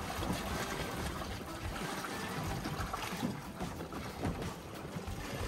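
Sea water splashing and rushing along the stern of a slowly moving sailboat while a swimmer dives under the hull beside it.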